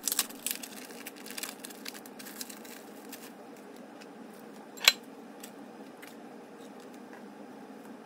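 Light clicks and clinks of small objects being handled over a steady low hum, with one sharp click about five seconds in.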